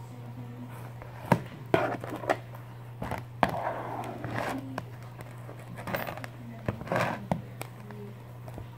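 Hands kneading and pulling sticky fluffy slime in a bowl: irregular squelches and sharp clicks, over a steady low hum.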